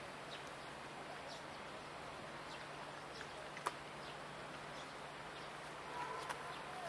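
Outdoor ambience: a steady faint hiss and low hum, with scattered faint ticks and chirps, a few short chirps near the end, and one sharp click about halfway through.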